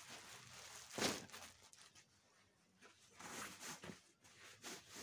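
Clear plastic bag crinkling and rustling as a cloth garment is pulled out of it and handled, in irregular bursts, the loudest a sharp rustle about a second in.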